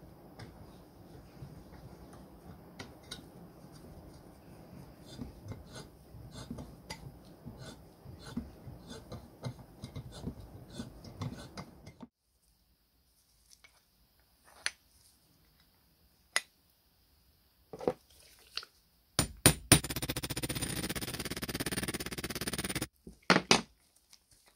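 Small metal clicks and scraping as a metal tool works in a threaded hole of a tinned cast iron juicer frame. After a silent stretch come a few sharp knocks, then a loud steady rushing noise for about three seconds that cuts off suddenly.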